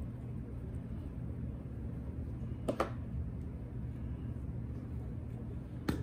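Steady low background hum with two short, sharp taps about three seconds apart, typical of a container or utensil being set down or knocked.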